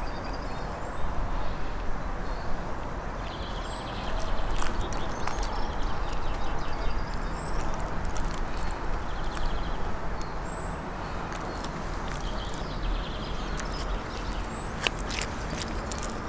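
Outdoor ambience: a steady background hiss with scattered light clicks and taps, and several short high bird chirps.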